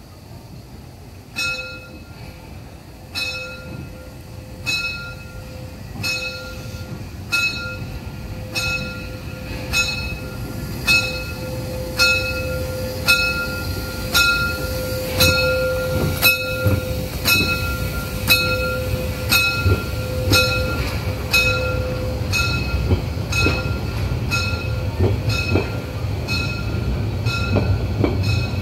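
Narrow-gauge steam locomotive 99 2323-6 ringing its bell over and over at walking pace, at first about every one and a half seconds and then about once a second. Its running rumble grows louder as it comes up and passes, followed by the coaches.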